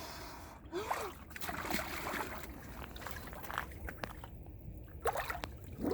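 Water sloshing and trickling in a cold-plunge pool as someone moves in it, with scattered small splashes.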